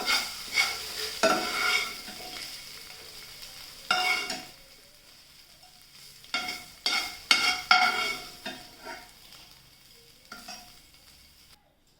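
Spatula scraping and stirring fried chicken pieces in a frying pan as they are lifted out, in bursts of quick strokes, over a faint sizzle of hot oil that dies away.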